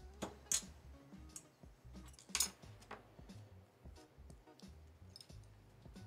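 Scattered sharp clicks and light clacks of hand tools, wire strippers among them, being handled and set down on a workbench mat. The loudest click comes about two and a half seconds in.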